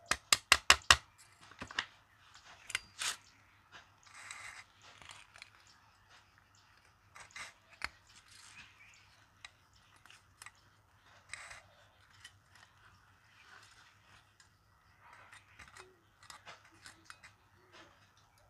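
Pliers clicking and snipping on locking wire threaded through the crown wheel carrier's bolt heads. A quick run of about six sharp clicks comes in the first second, followed by scattered clicks and the scrape of wire being pulled and twisted.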